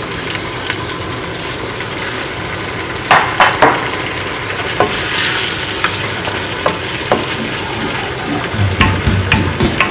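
Duck and vegetables in teriyaki sauce sizzling in a wok with a cup of hot water just added, stirred with a wooden spoon that knocks and scrapes against the pan, with sharp knocks about three seconds in.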